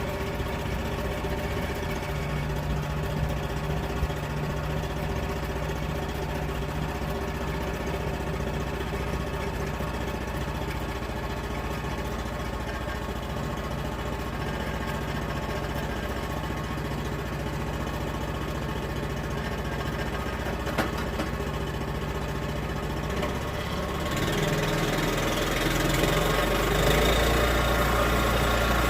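Portable sawmill's gasoline engine running steadily for the first slab cut through an oak log. About 24 seconds in it grows louder and deeper.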